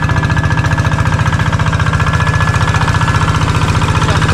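Hand tractor's single-cylinder Kubota diesel engine running steadily, a fast, even chugging pulse, as the tractor works through a flooded rice paddy close by.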